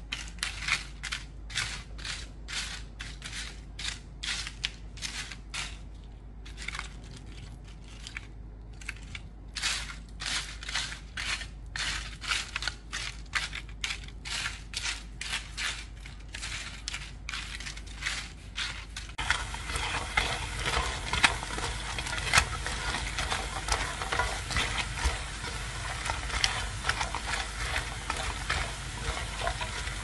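Crisp deep-fried fish pieces crunching and crackling in short snaps, about two or three a second, as wooden chopsticks break them up and toss them. About two-thirds of the way in, this gives way to a steady sizzle of frying in a pan.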